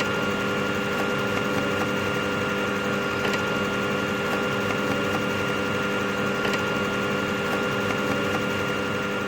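Steady hum and whine of a running Elliott 903 computer installation: several constant tones over an even mechanical whir, with no change.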